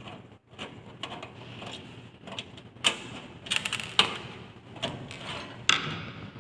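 Irregular clicks, knocks and light clatter of a desktop computer case's parts being handled and worked loose by hand, with a few sharper knocks about three, four and five and three-quarter seconds in.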